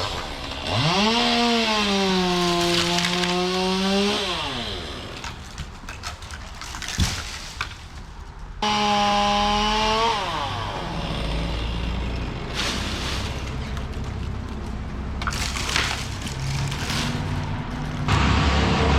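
Chainsaw revving up and cutting in two bursts, a longer one of about three seconds and a shorter one of about a second and a half, its pitch sagging under load and falling away each time the throttle is released. It idles and rattles between cuts, and a louder, lower engine drone sets in near the end.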